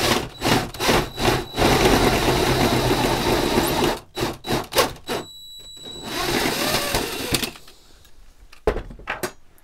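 Cordless drill with a step drill bit boring out the switch hole in a metal lamp shade to a larger size. The motor comes in short trigger bursts, then two longer steady runs with a thin whine as the bit cuts, and a few knocks near the end.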